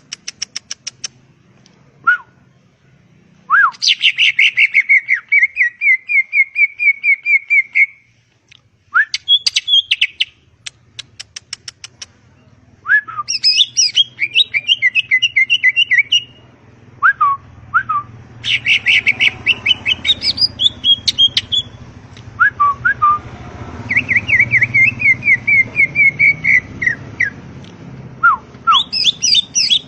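Green leafbird (cucak ijo) singing a varied, loud song: phrases of fast clicking rattles, rapid trills held near one pitch, and short sweeping whistled notes, with brief pauses between phrases.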